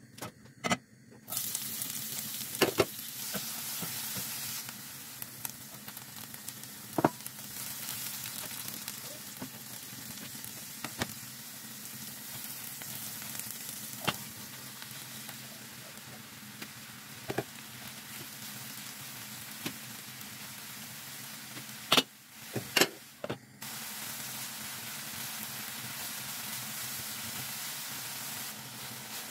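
Diced onion, pepper and aubergine sizzling in hot oil in a frying pan; the sizzle starts sharply about a second in as the onion is tipped into the oil. Now and then a sharp knock of the spatula against the pan, with a short lull a few seconds before the end, after which the sizzle runs a little louder.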